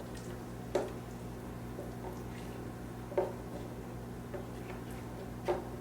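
Thick blended fruit puree being poured and scraped from a blender jar into a bowl, with three short wet plops and knocks over a steady low hum.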